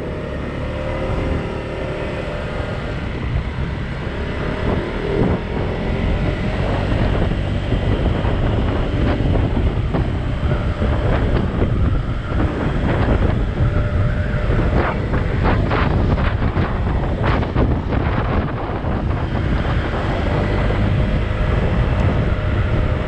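Honda PCX scooter riding along with heavy wind buffeting on the microphone over its engine, growing louder over the first several seconds as it picks up speed, then holding steady.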